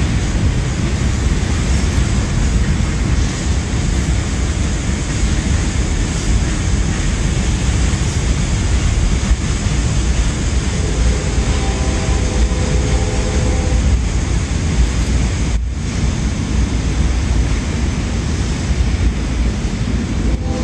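Freight train cars rolling over a steel girder bridge: a loud, steady rumble of wheels on rail. A faint steady tone joins for a few seconds a little past halfway.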